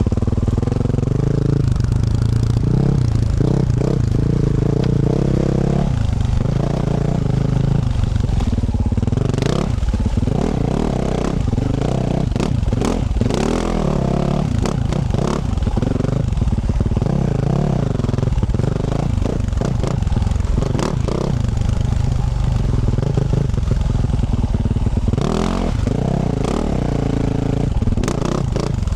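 Yamaha YZ450F's single-cylinder four-stroke engine, fitted with a Yoshimura RS-12 exhaust, being ridden off-road: the revs rise and fall with the throttle. Now and then a sharp knock or scrape cuts through.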